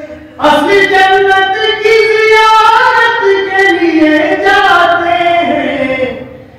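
A man singing devotional verse solo and unaccompanied into a microphone, one long melodic phrase that starts about half a second in and fades away near the end.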